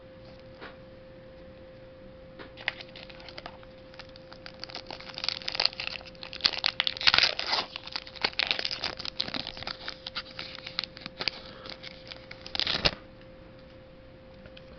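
Pokémon booster pack's foil wrapper being torn open and crinkled in the hands, a run of irregular crackles that builds up a couple of seconds in and stops near the end. A faint steady electrical hum sits underneath.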